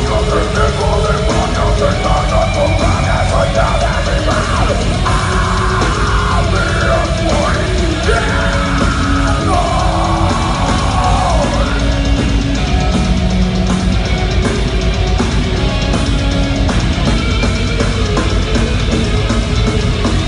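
A live rock band playing loud electric guitars, bass and drum kit without a break.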